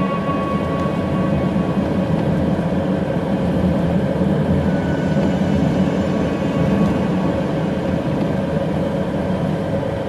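Car driving along a wet, slushy road: steady engine and tyre noise heard from inside the cabin.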